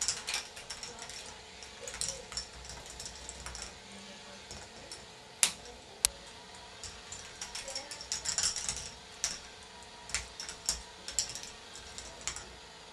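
K'nex ball machine running: plastic track parts, lift mechanism and balls clicking and clattering in irregular clusters, with two sharp louder clacks about five and six seconds in.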